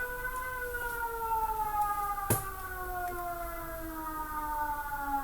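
Recorded emergency alert siren: one wailing tone with overtones, sliding slowly down in pitch, with a sharp click a little over two seconds in.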